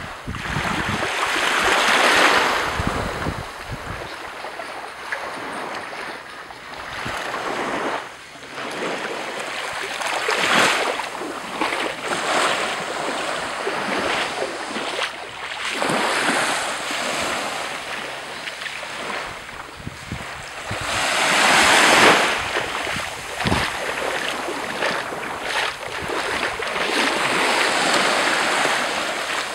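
Small waves washing up onto a sandy beach and drawing back, surging and fading every few seconds, the loudest wash a little past the middle. Wind buffets the microphone with a low rumble in the first few seconds.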